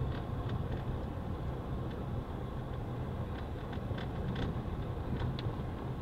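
A vehicle driving along a dirt road: a steady low rumble of engine and tyres, with scattered small clicks and rattles.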